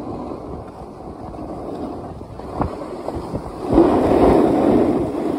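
Wind rushing over the microphone while riding fast down a groomed slope, with edges scraping across the packed snow. The rush swells louder a little past halfway, just after a single knock.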